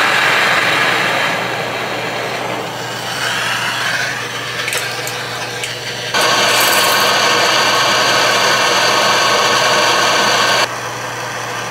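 Handheld MAP-gas torch burning with a steady hiss, its flame played on a snapped-off steel bolt to heat it. The hiss drops abruptly about two seconds in, jumps back up about six seconds in, and falls again near the end.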